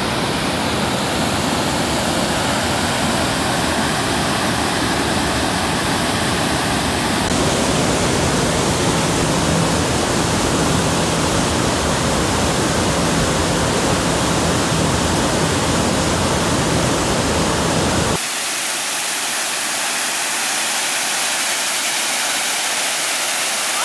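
Rushing water of the Amnicon River's high, fast rapids and waterfalls, a steady roar of white water. It changes abruptly about 7 seconds in and again about 18 seconds in, the last part a thinner hiss of falling water with little deep rumble.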